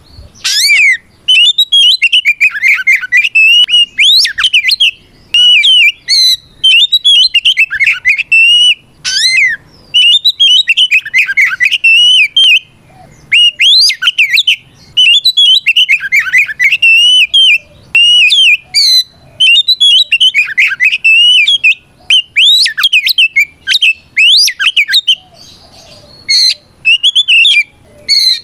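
Oriental magpie-robin (kacer) singing loudly in a long run of varied phrases: clear whistles, rapid warbles and trills, separated by brief pauses. It is the full-throated 'ngeplong' challenge song of a male calling out a rival.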